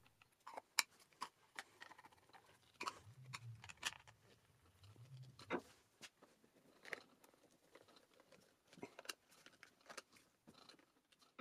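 Faint, scattered clicks and light taps as the cover plate of a mini mill's electrical switch box is fitted back on and its screws are driven in with a screwdriver.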